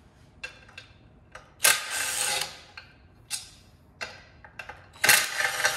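Cordless power driver running in two short bursts, one a little under two seconds in and one near the end, backing screws out of an aluminium oil pan to free the oil pickup. Light clicks and clinks of metal come between the bursts.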